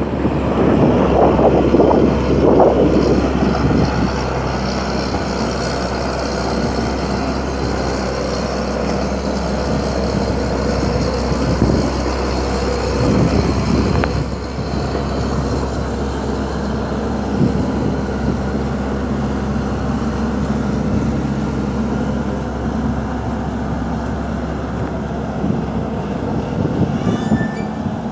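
Komatsu crawler excavator's diesel engine running steadily while it digs. Wind gusts on the microphone in the first few seconds.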